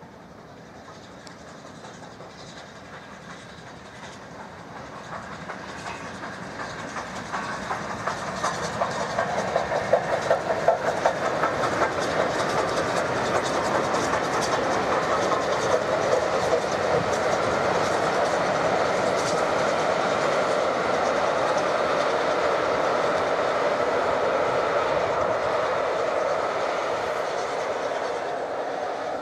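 Single-chimney BR Standard 9F steam locomotive hauling a passenger train past, the sound growing as it approaches and loudest about ten seconds in. It then gives way to the steady rolling of the coaches along the track, easing slightly near the end.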